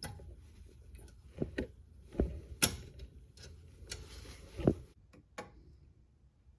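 Sharp metal clicks and taps as a brake pad retaining spring is worked into a Project Mu big-brake caliper by hand, over a low rustle of handling; the loudest click comes about two and a half seconds in, and it goes quiet after about five seconds.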